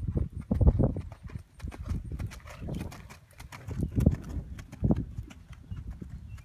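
Hoofbeats of a ridden chestnut horse trotting past at close range on grass and a dirt track: a run of dull thuds with sharper clicks among them.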